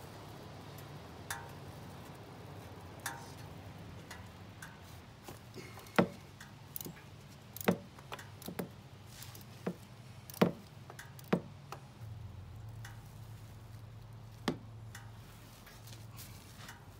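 Tools working the engine oil drain plug loose on a Harley-Davidson Dyna: a string of sharp metal clicks and knocks at irregular intervals, most about a second apart through the middle, over a faint low background.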